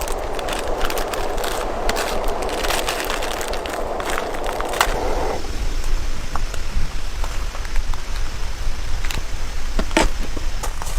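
Rain pattering, with many separate drops ticking sharply; a steady hiss under it stops abruptly about halfway through, while the ticking goes on.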